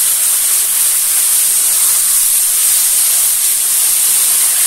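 Diced raw potatoes frying in hot mustard oil in a kadai, a loud, steady sizzle.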